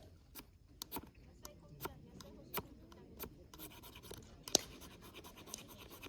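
A series of irregular sharp clicks and ticks over light scratching, with one louder click about four and a half seconds in.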